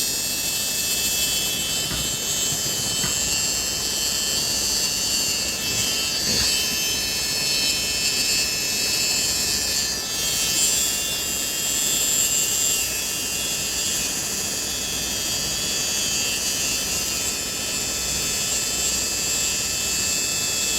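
Jucai Pro Minicandy hair trimmer's brushed rotary motor running steadily at full speed, measured at about 12,000 RPM, with a steady high-pitched whine.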